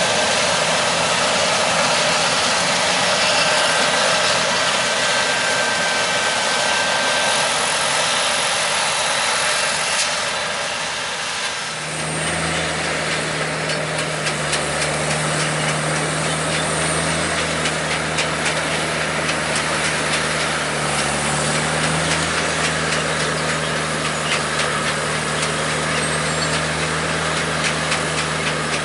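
Farm machinery running. First a forage harvester chopping corn, heard as a steady rushing noise. Then, after an abrupt change about twelve seconds in, a tractor engine holds a steady low hum while its forage wagon unloads chopped corn silage, with fast, fine ticking.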